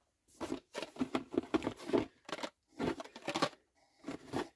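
Toy-car blister packs, plastic bubbles on card backing, being handled and shuffled in a cardboard box: an irregular run of rustles, scrapes and light knocks with two short pauses.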